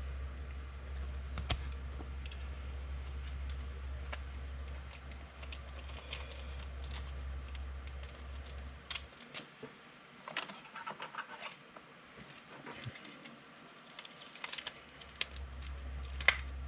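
Trading cards and their packaging being handled: scattered light clicks, taps and scrapes of card and plastic, a few sharper clicks among them. A low steady hum underneath drops out for several seconds midway.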